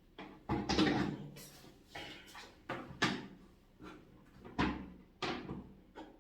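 A small plastic portable washing machine being handled as clothes are loaded into its tub: an irregular series of about seven knocks and clatters, the loudest near the start.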